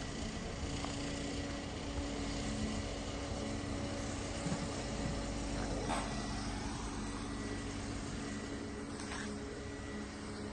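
Car engine running at low speed: a steady hum with a constant low rumble, and a couple of faint brief clicks partway through.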